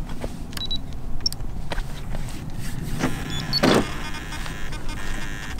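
Short electronic beeps and clicks from the giant RC Airbus A380 model as its flight batteries are plugged in and its electronics power up, with a brief louder whir about three and a half seconds in.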